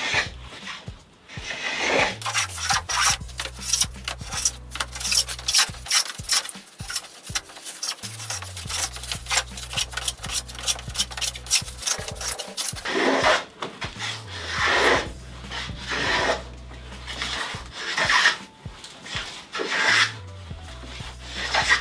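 Hand plane cutting a moulding profile along a wooden board: repeated scraping push strokes, quick and closely spaced in the first half, then single longer strokes about every second and a half. Background music with a steady bass line plays underneath.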